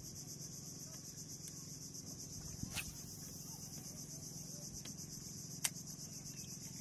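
Steady, high-pitched chorus of insects trilling with a fast even pulse. Two sharp clicks come about three seconds and five and a half seconds in.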